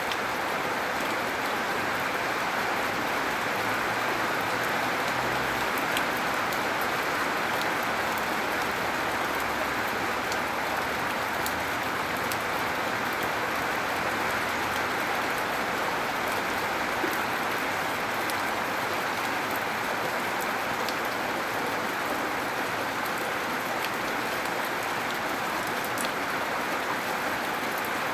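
Steady, gentle rain falling, with scattered sharp drops ticking.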